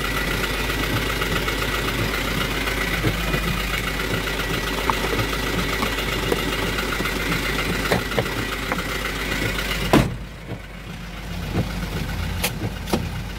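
Toyota Dyna 130 HT truck's diesel engine idling steadily, heard from inside the cab, with small plastic knocks as the dashboard cover panel is handled. A sharp knock comes about ten seconds in, after which the sound is quieter, and a few sharp clicks follow near the end.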